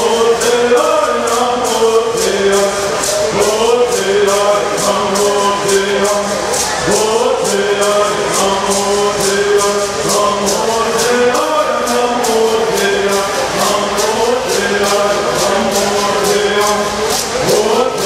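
Men's group singing a Southern California bird song in unison, chant-like, with gourd rattles shaken in a steady beat of about three to four shakes a second.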